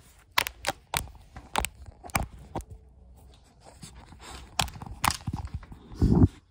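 A dog nosing and bumping a camera that sits low on the floor: a string of irregular sharp knocks and taps against the microphone, with a louder low thump near the end.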